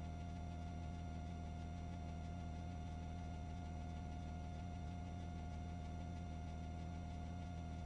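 Steady electrical hum with a thin high whine and even hiss, unchanging throughout: recording-chain noise with no other sound.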